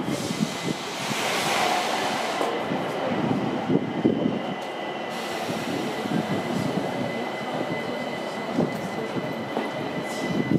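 ÖBB S-Bahn train approaching the platform, a steady rumble with a thin, steady high whine from the rails that sets in about a second in.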